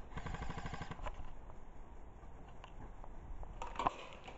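Airsoft rifle firing a rapid full-auto burst, a fast even string of sharp cracks that stops about a second in. A few scattered single pops follow, with a small cluster near the end.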